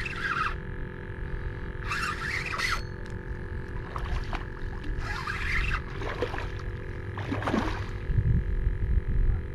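A hooked redfish thrashing and splashing at the surface beside the kayak, in several short bursts. A steady wind rumble runs on the microphone underneath.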